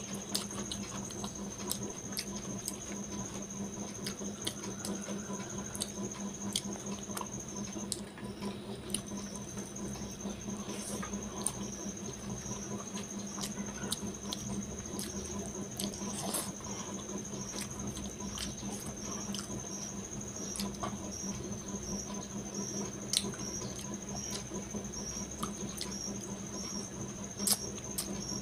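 Close-miked eating by hand: chewing and lip-smacking on mouthfuls of rice and curry, with many small wet clicks. A steady low hum and a steady high-pitched whine run underneath.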